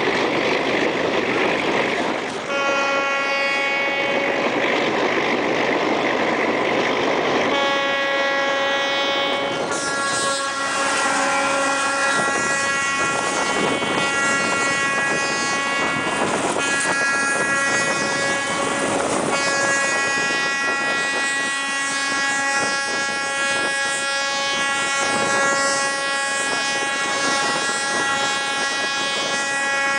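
Train running, heard from an open carriage window: steady rolling noise, with the horn sounding a two-second blast twice and then long, nearly continuous blasts with short breaks.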